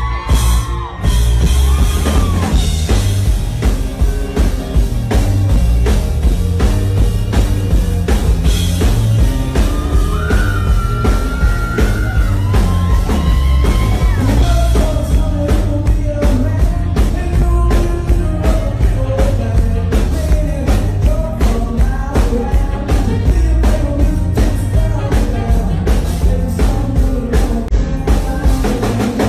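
A rock and roll band playing live, with electric guitar over bass and drums at a steady driving beat; a man's voice comes in singing about halfway through.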